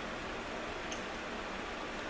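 Steady background hiss of a small shop room, with one faint tick about a second in.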